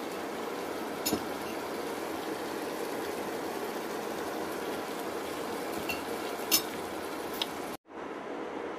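Eggplant curry sizzling steadily in a pan, with a few faint clicks. The sound drops out for a moment near the end, then the sizzle goes on more quietly.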